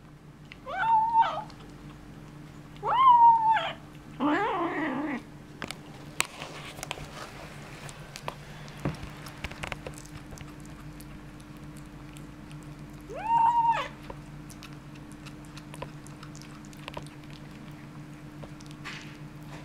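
White kitten making weird, drawn-out yowling calls while eating meat off a bone: two rising calls in the first four seconds, then a rougher, falling growl, and one more call about 13 seconds in. Small clicks of chewing come between the calls.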